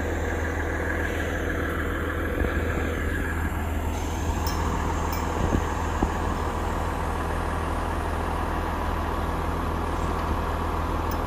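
A large truck engine running steadily with a low drone, while a fainter whine falls in pitch over the first few seconds.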